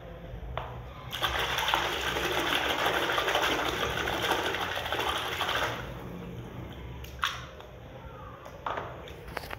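Water splashing and sloshing in a plastic tub as a hand vigorously swishes a mud-covered toy horse under the surface to wash it. The splashing runs loud from about a second in until about six seconds, then settles to quieter sloshing with a couple of small knocks.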